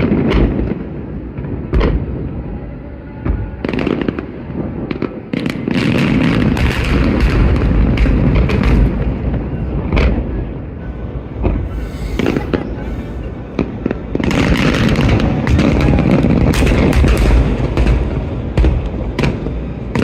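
Fireworks display: aerial shells bursting in quick succession, sharp booms over a continuous low rumble and crackle, heaviest in a dense barrage in the second half.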